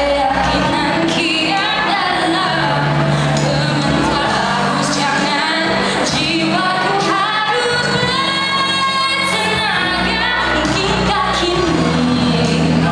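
A young woman singing a Malay song solo into a handheld microphone over instrumental backing music, holding one long note a little past the middle.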